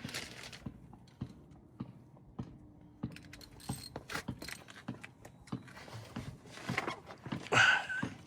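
Irregular metal clicks and knocks of hand tools, as an oil filter wrench is worked onto the oil filter under the 4Runner. A louder scrape with a brief squeak comes about seven and a half seconds in.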